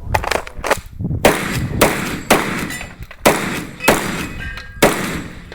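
A string of about nine gunshots, fired one after another roughly half a second to a second apart, with a shorter pause near the middle.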